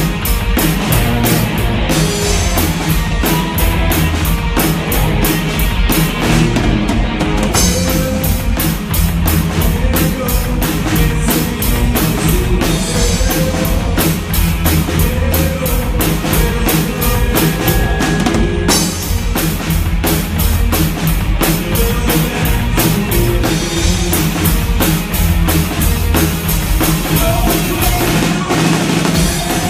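Rock band playing live: a full drum kit with a steady run of cymbal strokes over electric guitars and bass.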